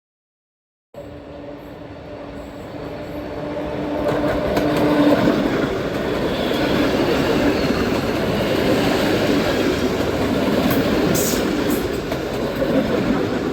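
BDZ class 32 electric multiple unit (Riga-built ER25) running along the track. A rumble of wheels on rail starts abruptly about a second in and grows louder for a few seconds, with a steady hum that drops away about four seconds in.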